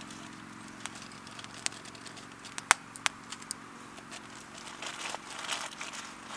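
Wood campfire crackling, with scattered sharp pops, the loudest a little under three seconds in, and a short stretch of denser crackle and rustle around five seconds in.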